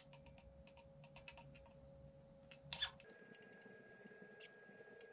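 Faint small clicks and taps from the parts of a suspension seatpost being handled while its spring is greased, with one slightly louder click just before three seconds in.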